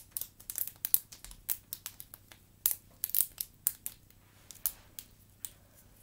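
Wacky Tracks snap fidget toy, its plastic links clicking as they are twisted: a quick, irregular run of sharp clicks that thins out to a few scattered clicks after about three and a half seconds.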